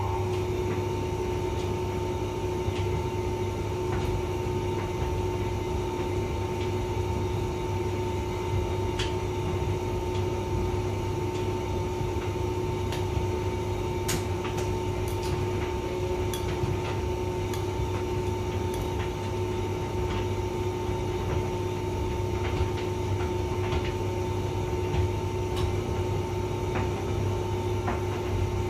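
Hotpoint vented tumble dryer running: a steady motor and fan hum with a constant whine, and occasional light clicks and taps.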